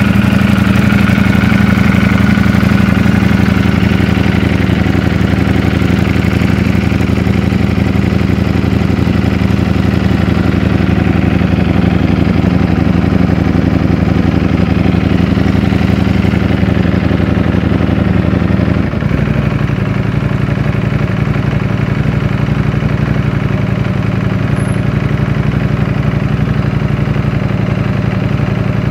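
Ducati Streetfighter V4S's V4 engine idling steadily in neutral. About two-thirds of the way through the idle drops to a lower, slightly quieter note.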